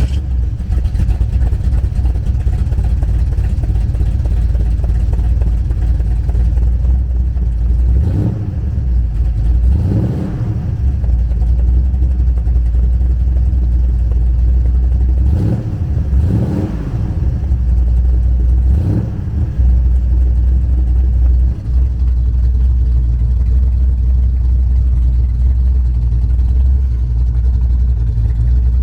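Chevrolet 396 big-block V8, breathing through a Holley four-barrel and ceramic-coated headers into dual exhaust, running at a steady idle with about five quick blips of the throttle, the last three close together in the middle of the stretch.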